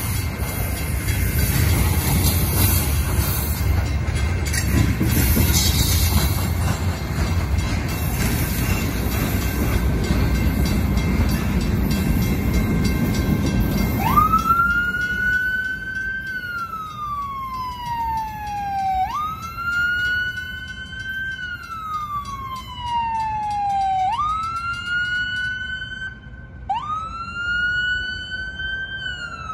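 A Portland and Western freight train's cars rumble past, with the crossing's mechanical bells ringing. About halfway through the train noise ends and an ambulance siren takes over: a wail that rises quickly and falls slowly, repeating every few seconds.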